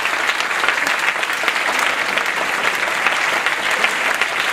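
Audience applauding steadily: dense, continuous clapping from many hands at the close of a talk.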